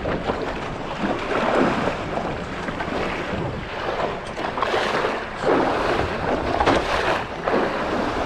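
Wind rushing over the microphone on an open boat at sea, with water and hull noise underneath; it swells and eases in gusts.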